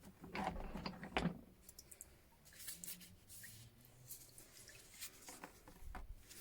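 Faint handling sounds of metal wrenches being picked up and moved: a short rustling scrape about half a second in, then scattered light clicks and rustles.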